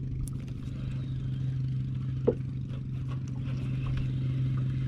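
A motor running steadily at an even pitch, with one sharp click a little over two seconds in.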